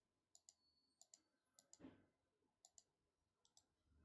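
Faint computer mouse clicks, most of them in quick pairs as the button is pressed and released, about five pairs spread over a few seconds.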